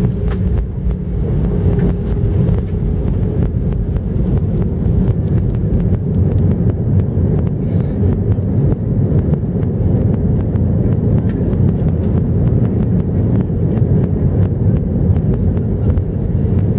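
Cabin noise of an Airbus A319 on its landing roll: a loud, steady rumble of the engines and the wheels on the runway, with many small knocks from the landing gear. The ground spoilers are raised on the wing. A low hum fades out in the first couple of seconds.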